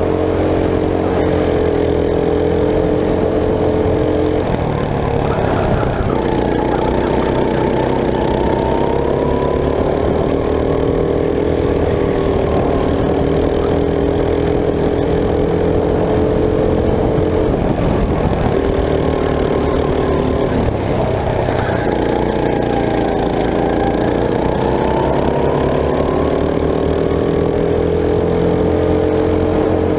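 Racing go-kart engine running hard, heard onboard. Its pitch falls as it lets off for corners, about four seconds in and again around seventeen to twenty seconds, then rises as it accelerates back up to speed.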